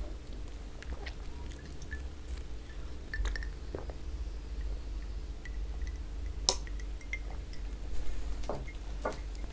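Drinking from a glass mug: sips and swallows of liquid, with glass clinks as the mug is handled and one sharp clink about two thirds of the way through.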